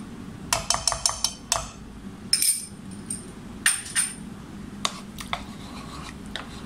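Metal spoon clinking and tapping against a bowl and a nonstick pan as cream cheese is scraped into a milk white sauce: a quick run of ringing clinks starting about half a second in, more around the middle, then scattered taps as the sauce is stirred. A steady low hum runs underneath.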